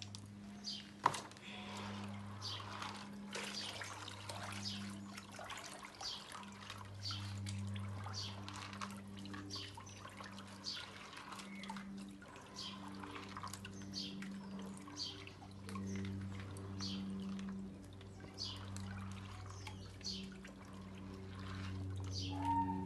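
Beans being washed by hand in basins of water: water sloshing, pouring and dripping in frequent short splashes, with a steady low hum underneath.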